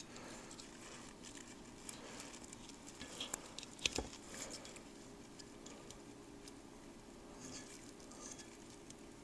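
Faint scattered ticks and light scraping as fingers work a rubber O-ring flush onto a cylinder skirt of a Honda CB350F aluminium cylinder block, with a sharper click about four seconds in.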